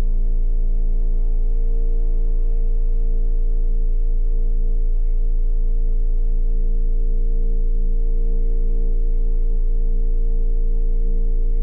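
A steady drone of several held tones over a deep low rumble, with no change in level: a dark ambient horror-film score.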